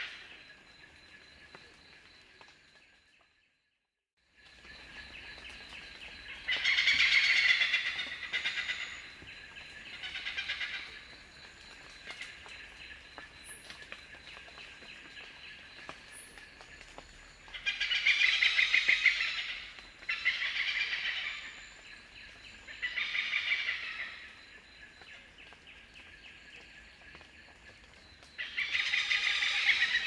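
Oriental pied hornbill calling: loud, sharp, rapidly repeated "kek-kek-kek" cackles in about six bursts of one to two seconds each, with quieter gaps between. The sound drops out completely for about a second, about three seconds in.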